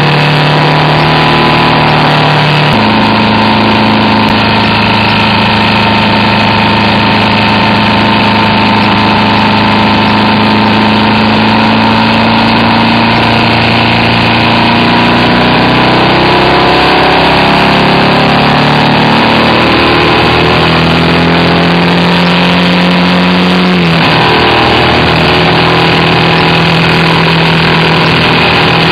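BMW R1200RT's air/oil-cooled boxer twin engine running under way, with wind noise on the microphone. The engine note jumps suddenly in pitch about three seconds in and again near the end, and sags and climbs back through the middle as the speed changes.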